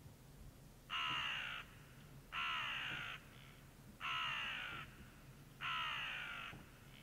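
Common ravens calling: four harsh, drawn-out croaks in a row, each just under a second long and about a second and a half apart, each falling slightly in pitch.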